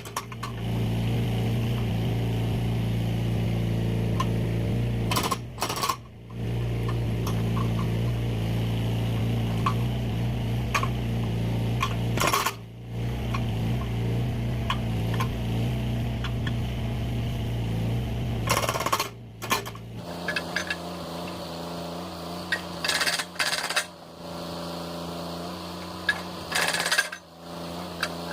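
A mini excavator's engine running steadily, with sharp knocks and cracks every few seconds as firewood logs are split. About twenty seconds in, the engine's low drone drops away while the knocks carry on.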